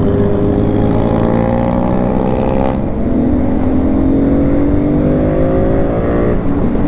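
Volkswagen Polo with a full-system aftermarket exhaust accelerating through the gears. The exhaust note climbs steadily in pitch, drops suddenly at an upshift about three seconds in, climbs again, and breaks off at another shift near the end.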